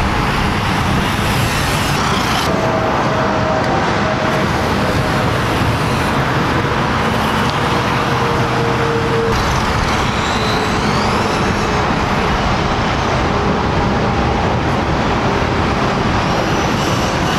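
Steady highway traffic noise, a dense unbroken wash of passing vehicles, with a few faint rising and falling whines over it.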